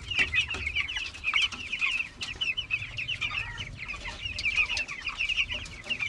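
A cage of young native chickens calling without pause, a dense chorus of short clucks and peeps. Scattered light knocks and clicks sound among the calls.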